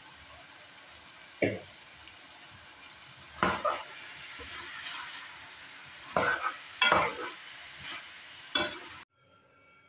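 Diced bottle gourd sizzling on keema masala in a metal pot while a spatula stirs it, scraping and knocking against the pot about five times. The sizzling cuts off suddenly near the end.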